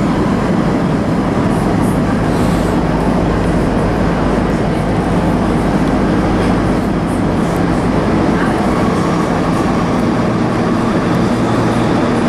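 Munich U-Bahn B-type train heard from inside the car, running steadily through a tunnel: an even rumble of wheels on rails and running gear.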